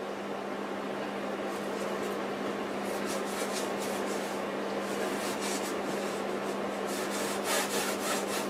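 A flat bristle brush scrubbing ultramarine paint onto a stretched canvas in repeated strokes, the strokes denser and louder from about three seconds in. A steady low hum runs underneath.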